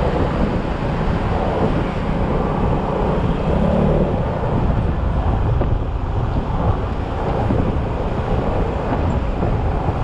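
Yamaha XMAX scooter under way: its single-cylinder engine running steadily under a dense rumble of wind and road noise on the microphone.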